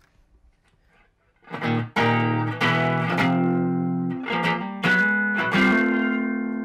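1963 Fender Stratocaster electric guitar played through an amplifier: after a second and a half of near quiet with small handling clicks, chords are strummed and let ring, restruck every half second to second.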